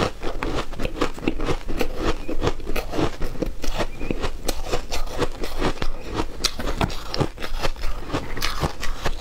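Ice being crunched and chewed in the mouth: a bitten-off chunk of matcha-powdered ice block breaking up between the teeth in a quick, irregular run of sharp crackling crunches.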